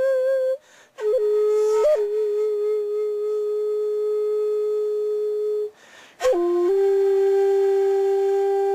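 Shakuhachi playing slow, long held notes. Each note is entered with a quick flick of pitch, and two short breath pauses fall about a second in and near six seconds. The opening note wavers with vibrato.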